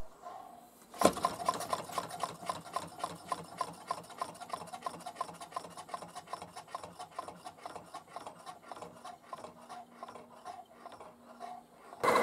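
Half rhombic drive Stirling engine with a 3D-printed drive, turned over by hand: a sharp click about a second in, then a quick run of light mechanical ticks and rubbing from the drive and crank that grow fainter as it coasts down.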